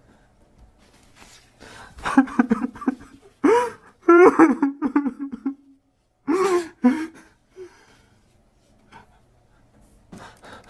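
A man crying: sobbing, whimpering cries with a wavering, falling pitch in several bursts, between quiet shaky breaths.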